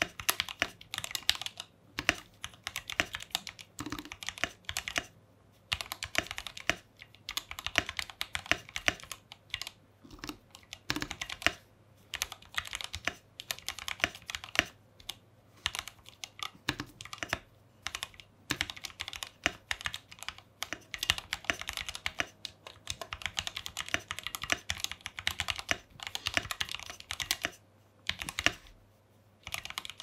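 Typing on a custom 96-key mechanical keyboard with lubed Gateron Ink V2 Black linear switches, an aluminium plate and PBT keycaps: quick runs of keystroke clacks broken by brief pauses.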